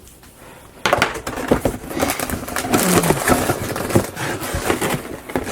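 Plastic bags of Lego pieces rustling and crinkling as hands rummage through a cardboard box, starting about a second in and running on with many small clicks and crackles.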